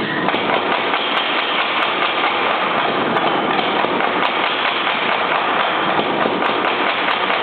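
Little Giant mechanical power hammer running with a rapid, steady run of blows, drawing out a taper on hot steel.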